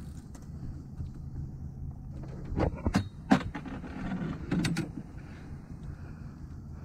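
A few sharp knocks and clatters of fishing gear against a small boat, about two and a half to three and a half seconds in and again near the five-second mark, as a metal-framed landing net is brought out over the bow. Under them is a low steady rumble.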